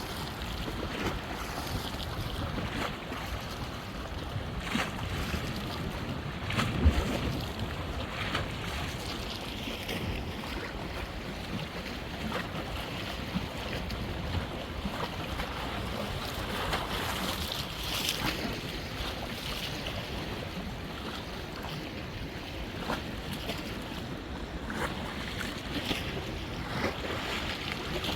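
Choppy river waves whipped up by a strong gale, splashing and slapping continually, with wind buffeting the microphone. There is one louder thump about seven seconds in.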